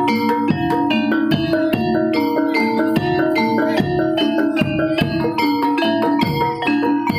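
Javanese gamelan music for a jaran kepang dance: bronze metallophones strike a repeating melody of ringing notes over regular drum strokes, at a steady tempo.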